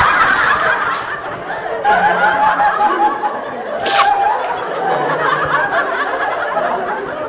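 Several people laughing and giggling together, with a short, sharp hissing burst about four seconds in.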